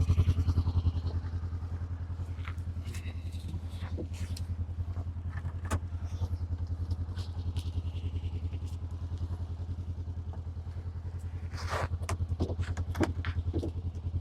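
Idling engine of a Polaris RZR side-by-side, a steady low pulsing run, with scattered knocks and clunks and a louder cluster of clatter near the end as logs are loaded onto it.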